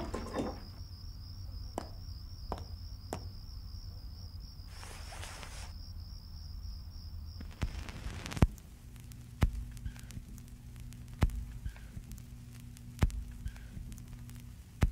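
A cricket chirring steadily, with a few sharp clicks and a short rustle about five seconds in. After about eight seconds the chirring stops and a low hum takes over, with a soft thud about every two seconds.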